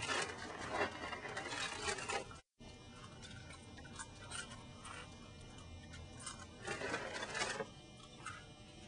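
Close-up crunching of dry Honeycomb cereal being chewed, in bursts: a long crunch at the start, broken by a cut, then scattered crackles and another crunch near the end.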